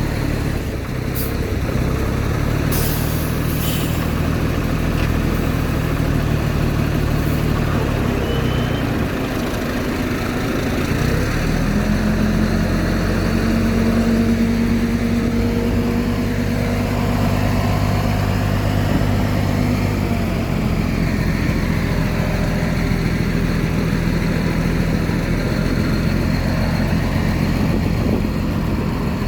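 Heavy diesel engine of earthmoving machinery running steadily, its pitch breaking up about nine seconds in, rising and holding higher from about twelve to twenty seconds, then settling back lower.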